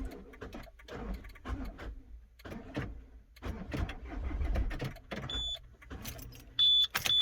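Citroen 2.0 HDi diesel engine turned over on the starter without catching: a crank-no-start, which the owner traced to a failing common-rail fuel pressure regulator (code P1210). Keys jingle, and short high beeps sound several times near the end.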